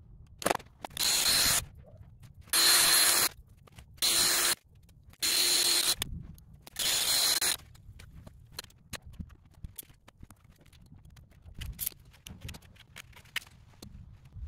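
Five short hissing bursts of spray from a hand-held nozzle, each under a second, over the first half. After that come scattered light clicks and handling knocks.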